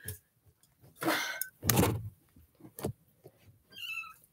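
Knocks and a loud thump in a stainless steel kitchen sink, with a brief rush of splashing, as a wet kitten struggles and scrambles while being bathed; a short high-pitched sound comes near the end.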